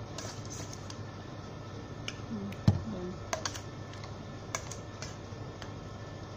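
Scattered light clicks and taps of a hand and utensil against a stainless steel mixing bowl while working chicken wings in their marinade, with one louder knock about two and a half seconds in.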